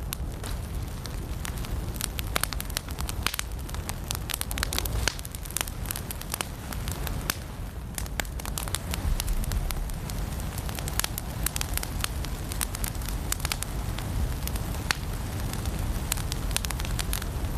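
Firewood burning in a fireplace: frequent, irregular sharp crackles and pops over a steady low rush of the flames.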